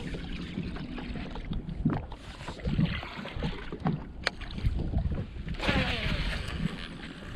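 Small waves lapping and knocking against a fishing boat's hull, with wind on the microphone. A short rush of water a little before six seconds in, as the rod tip is swept through the water at the boatside.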